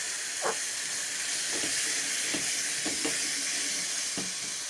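Thick stew base sizzling in a pot over low heat, with a steady hiss, while a spoon stirs it, scraping through the pot about six times.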